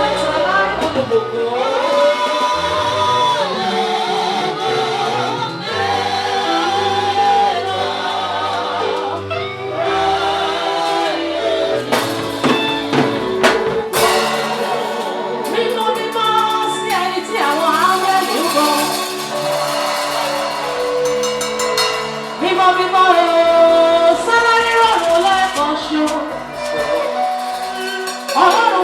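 Live gospel praise music: voices singing a worship song over a band's accompaniment with sustained bass notes, and a few sharp hits about twelve to fourteen seconds in.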